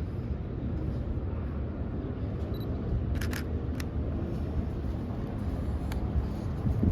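Camera shutter clicking: a quick pair of clicks about three seconds in, another just after, and a last one near the end. Steady low wind rumble on the microphone runs underneath.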